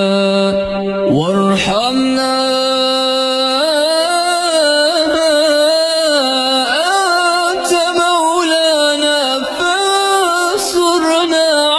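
A man's solo voice reciting the Quran in melodic tajweed, drawing out long vowels. It holds one steady note, rises to a higher held note about two seconds in, then winds through ornamented, wavering turns.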